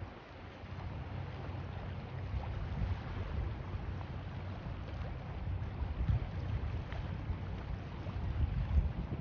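Wind buffeting the microphone: an irregular low rumble that swells in gusts, strongest near the end.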